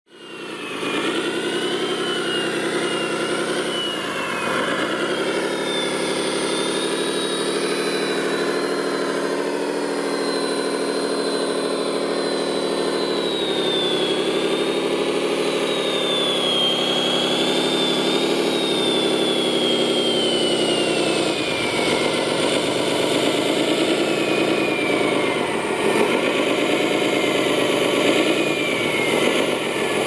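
Radio-controlled Komatsu WA600-6 model wheel loader running: a steady engine-like drone that dips and picks up again with the throttle, over a thin high whine that glides up and down as it drives.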